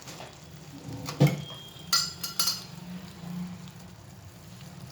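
Metal kitchen utensils clattering at a cooking pan: one sharp knock about a second in, then a few bright clinks a second later. A low steady hum runs beneath.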